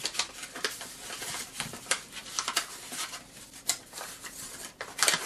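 A sheet of origami paper rustling and crackling as it is lifted and folded along its creases, in irregular crisp crinkles.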